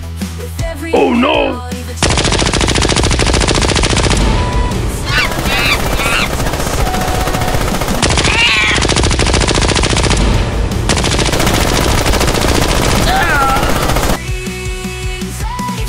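Sustained rapid machine-gun fire, starting about two seconds in and stopping a couple of seconds before the end, over background music.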